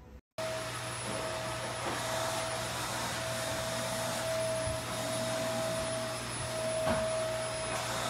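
Steady machine whir: even whooshing noise with a constant mid-pitched whine and a low hum, like a motor running, starting abruptly a moment in.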